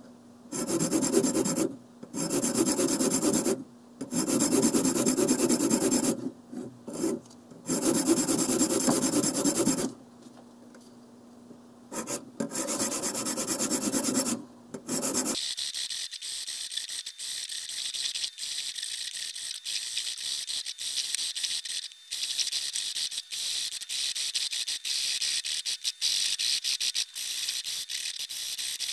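A cylindrical diamond sharpening rod is filed along the scallops of a serrated bread knife clamped in a guided sharpener. It gives rasping strokes of one to two seconds with short pauses between them. About halfway through, the sound turns to quicker, thinner, higher-pitched scraping.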